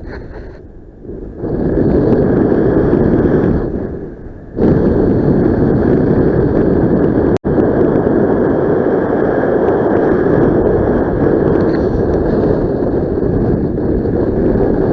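Wind buffeting the camera's microphone in paraglider flight: a loud, low wind rush that eases off briefly near the start and again around four seconds in, with a split-second cut in the sound about halfway through.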